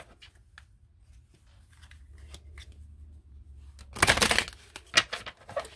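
Tarot cards being handled and shuffled. Faint rustling and ticking at first, then a louder shuffle of the deck about four seconds in, followed by a couple of sharp card snaps.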